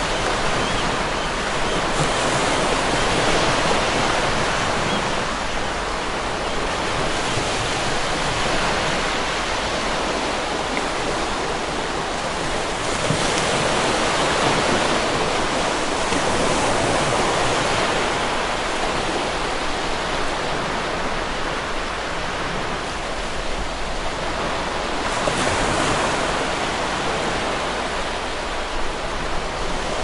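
Sea waves breaking on a rocky shore: a continuous rush of surf that swells and eases every few seconds as each wave comes in.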